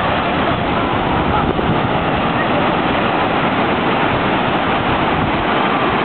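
Steady rushing noise of Atlantic surf breaking and washing over the shallows, mixed with wind buffeting the microphone and faint distant voices of bathers.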